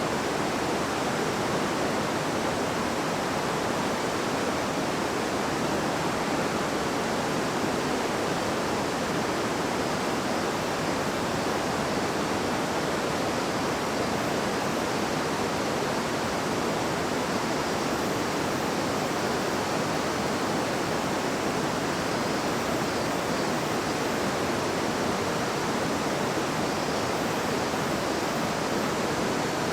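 Babbling river: a steady, even rush of flowing water.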